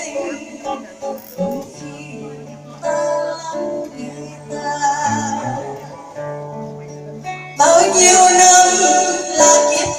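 Acoustic guitar played softly with plucked notes over held bass tones, then a woman's singing voice comes in loudly over it about seven and a half seconds in.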